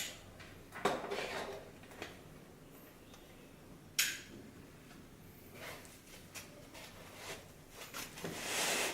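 Handling noise while wiring a car head unit to a 12-volt supply: scattered clicks and knocks of plastic and metal connectors, with a sharp click about four seconds in and a louder scraping rustle near the end.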